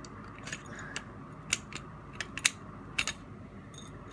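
A screwdriver prying inside a plastic action-figure ratchet joint: a scatter of short, sharp plastic clicks and scrapes, the loudest few in the middle.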